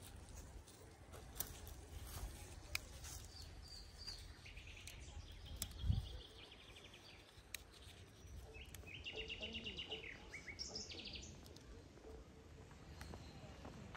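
A small songbird singing two quick trilled phrases, one about four seconds in and another about eight seconds in, over faint outdoor ambience with scattered light clicks and a low thump about six seconds in.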